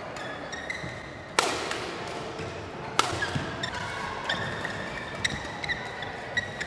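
Badminton rackets hitting a shuttlecock in a rally, with two hard overhead smashes about a second and a half apart that echo around a large sports hall. Lighter shots and short high-pitched squeaks of court shoes on the floor come in between.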